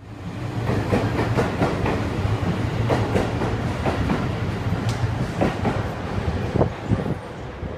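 Seibu 6000 series electric train at the platform: a steady low hum, with irregular clicks and knocks over it.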